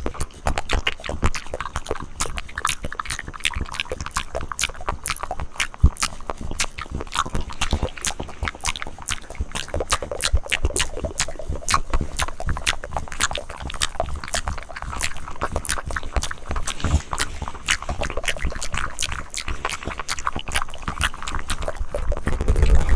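Close-miked ASMR mouth sounds: a dense, irregular run of wet tongue and lip clicks and smacks, several a second.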